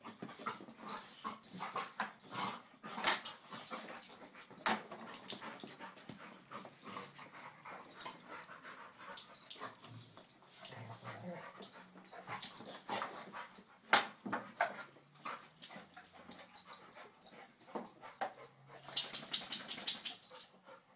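Two dogs play-fighting on carpet: scuffling and mouthing, with many short sharp clicks and knocks, and a scratchy rustle just before the end.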